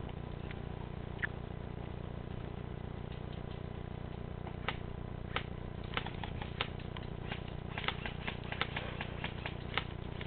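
A run of sharp, irregular clicks, a few a second, starting about four and a half seconds in, over a steady low rumble.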